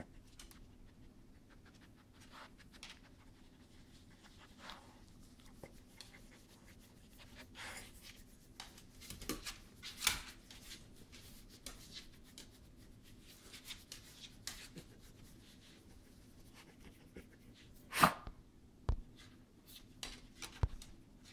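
Quiet, scattered soft taps and rustles: a small dog's claws on a tiled floor and a hand petting it, with one sharper knock near the end.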